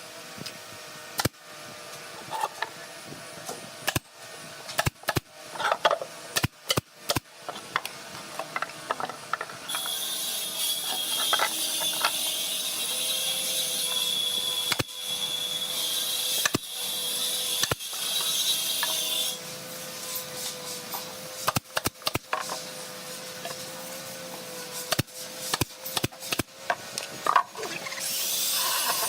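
Woodworking tools clicking and knocking in a series of sharp, irregular strikes, with a loud high hiss of air for about ten seconds in the middle.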